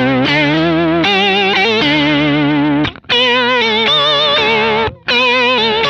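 Electric guitar played through a Kemper profiler with an octave effect and a very strong vibrato: sustained notes that wobble steadily in pitch. It comes in three phrases, broken by short gaps at about 3 s and 5 s.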